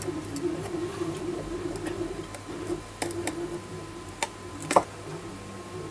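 Scattered light clicks and ticks of metal pliers handling resistors and pushing their wire leads into the holes of a circuit board. There are four or so sharp clicks in the second half, the loudest near the end, over a faint low wavering hum.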